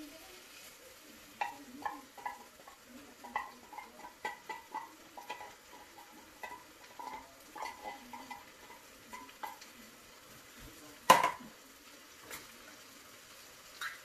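Wooden spoon scraping and knocking inside a tin can as beans are emptied into a frying pan of tomato sauce: a run of small quick knocks for most of the first nine seconds, then one much louder knock about eleven seconds in. A faint sizzle from the pan runs underneath.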